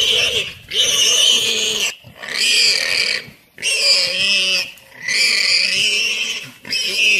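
Warthog squealing in distress as a leopard grips it: a series of loud, shrill squeals, each about a second long, with short breaks between them.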